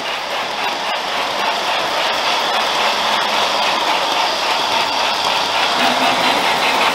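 Lionel O-gauge train running past on three-rail track: a steady rolling clatter from the freight cars' wheels.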